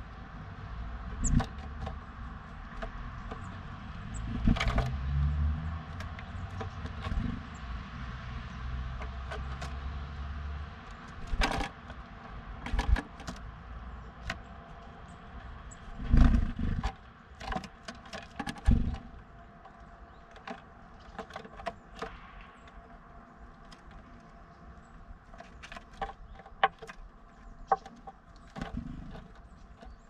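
Irregular taps, knocks and scratches from a blue tit moving about and pecking at the feeding station inside a wooden birdhouse. Under them runs a faint steady hum, with a low rumble from about four to eleven seconds in.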